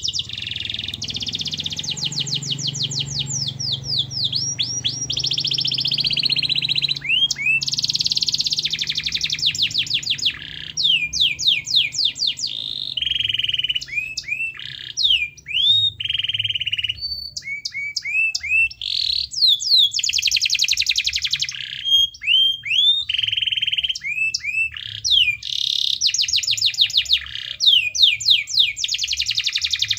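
Domestic canary in full, continuous song: long rolling trills of rapid repeated notes alternating with quick down-slurred whistles, the phrase changing every second or two with only brief pauses.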